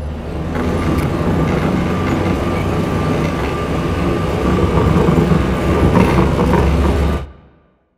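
Inside a moving ambulance's cab: a steady low engine drone with the body rattling and clicking over a rough road. It fades out quickly near the end.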